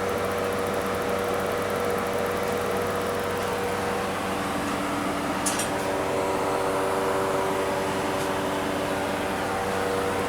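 Steady hum of running fans and motors in a refrigeration plant room, carrying several steady tones that change pitch about halfway through. There is one sharp snap about five and a half seconds in.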